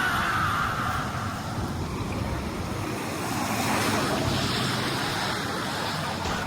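An engine running steadily under a constant wash of noise, with a brief falling whine right at the start.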